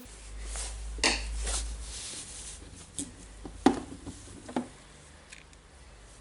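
Hand tools and small plastic drill parts handled on a workbench: a low rumble of handling in the first two seconds, then a few sharp separate clicks and taps, the loudest about two-thirds of the way through.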